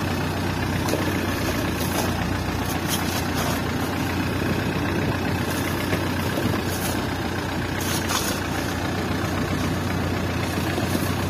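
Fishing boat's engine running steadily underway, with a few brief rattles of crushed ice being scooped from a basket and tipped into a cooler.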